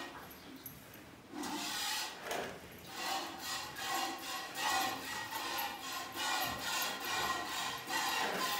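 Milk squirting from a cow's teats into a pail during hand-milking: a rhythmic hiss, one short squirt with each pull, starting about a second in.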